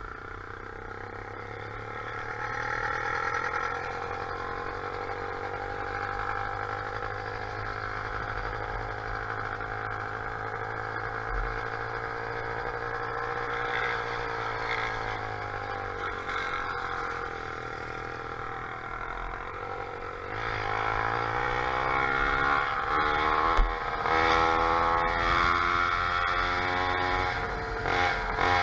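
Motorized bicycle's small engine running while under way. Its pitch eases down and back up around the middle, then climbs and gets louder as it speeds up about two-thirds of the way through.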